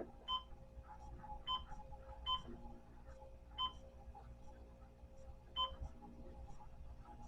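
Digital clock beeping as its setting buttons are pressed: five short, high beeps at irregular intervals of one to two seconds.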